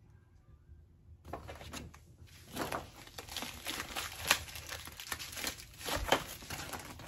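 Packaging crinkling and rustling as chair parts are handled, starting about a second in, with a few sharper crackles.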